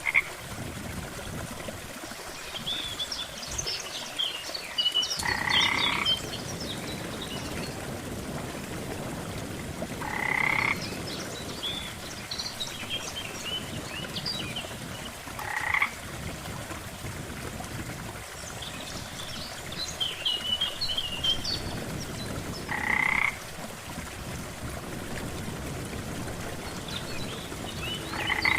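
Frog croaking, one short pulsed croak about every five seconds, with fainter high chirps scattered between the croaks over a steady low background noise.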